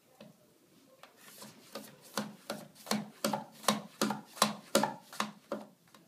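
A raw potato being pushed across a mandoline slicer's blade, about a dozen quick rasping slicing strokes, two or three a second, growing louder; they begin about a second in and stop just before the end.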